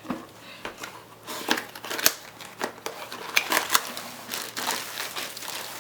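Diamond painting kit packaging being handled and unpacked: a run of crinkles, rustles and sharp clicks, with a louder snap about two seconds in.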